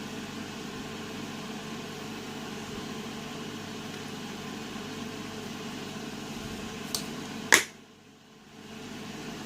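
Steady background hum with two sharp clicks about seven seconds in, the second much louder. After the loud click the background briefly drops away.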